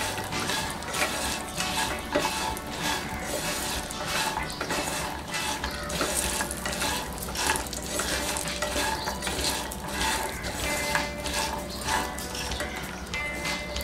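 Slotted plastic spatula stirring and scraping cashew nuts around a nonstick frying pan as they roast in a little oil, the nuts clattering against the pan in quick, irregular strokes.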